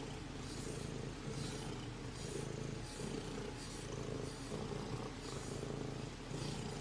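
A domestic cat purring close to the microphone, a steady low rumble that swells and eases in a regular rhythm of just under a second.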